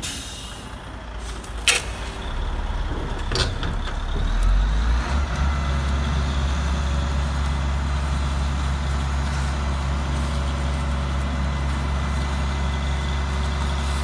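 An RC dump truck's simulated diesel engine sound, running as a steady low drone. It comes up about four seconds in, after two sharp clicks.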